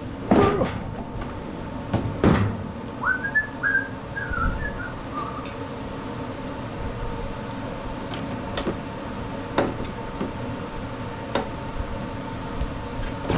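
Scattered clanks and knocks of hand tools working on a lawn mower, with a person whistling a short tune of several notes about three seconds in.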